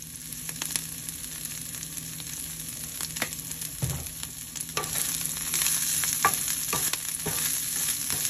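Chopped kale sizzling in olive oil in a nonstick frying pan, a steady hiss dotted with sharp pops and crackles that grows louder about halfway through. A wooden spatula stirs the leaves near the end, and there is a soft thump about four seconds in.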